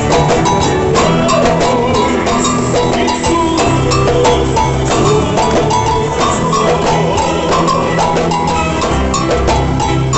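Boi-bumbá toada played by a live band with dense drum percussion, strong bass and a steady beat.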